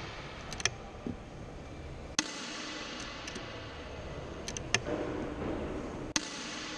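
Sharp clicks and light taps as the Walther LG300XT air rifle's mechanism is handled, the sharpest about two seconds in and near the end, over a steady faint hiss.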